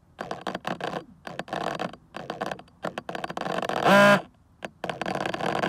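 Racerstar 2514 brushless motor on a Holybro BLHeli_32 65A ESC stuttering and crackling in irregular bursts as the throttle is raised, never spinning up, with a brief wavering tone about four seconds in: the sound of a failed ESC.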